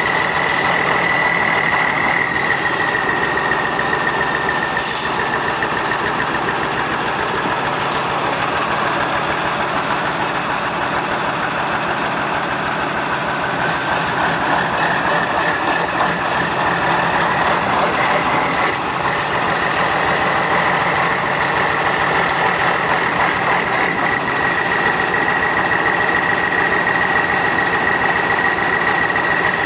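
Tatra 815 8x8 trial truck's diesel engine running under load, with a steady high whine above it that fades out midway and returns.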